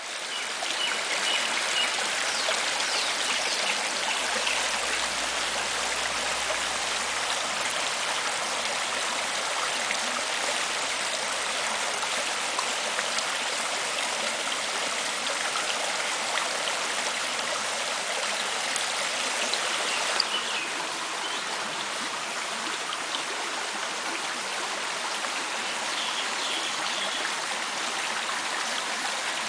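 Water of a karst spring resurgence running as a shallow stream over stones: a steady rushing and gurgling. There is a brief click and the flow sounds slightly quieter about twenty seconds in.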